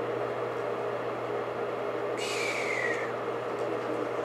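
AC blower motor and fan running steadily on a 555-timer PWM speed controller, a constant whir with a faint hum. About two seconds in, a brief high squeal falls in pitch for about a second.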